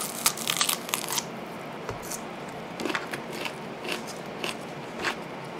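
Close-miked eating sounds: a bite into a hamburger and chewing, with a quick run of crisp crackling clicks in the first second and then scattered single ones.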